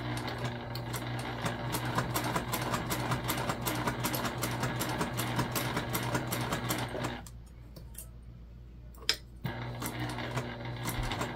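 Electric sewing machine top-stitching through vinyl: a steady motor hum with rapid, even needle strokes. A little past halfway it stops for about two seconds, a single click sounds in the gap, and then it starts stitching again.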